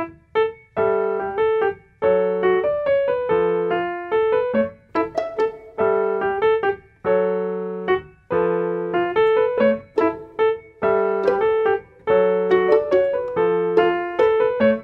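Background music: a keyboard tune of short, evenly paced piano-like notes over a recurring low note.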